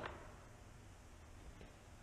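Near silence: room tone, with a faint tick about one and a half seconds in.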